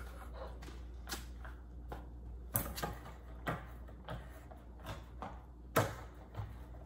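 A plastic paint tray and scissors being handled on a countertop: a series of light clicks and knocks, the loudest a little before the end, over a low steady hum.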